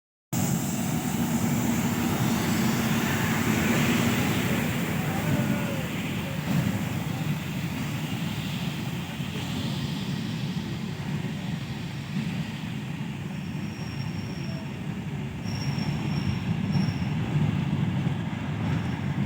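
A train running on the track, with a steady rumble of wheels on rail. Short, faint, high-pitched wheel squeals come in over the second half.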